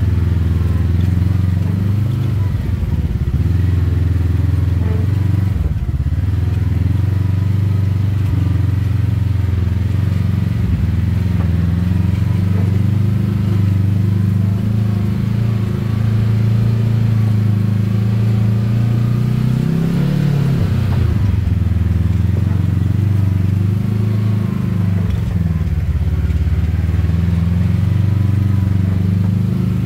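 Side-by-side UTV engine running steadily at low speed under load as the machine crawls over rocks, heard from the driver's seat. The engine revs up briefly and settles again about twenty seconds in.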